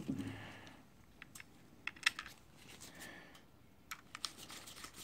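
Screwdriver driving a screw into the plastic case of a Makita lithium-ion power-tool battery pack: scattered light clicks and ticks as the tip engages and the screw turns, a few bunched together about two seconds in and again near the end.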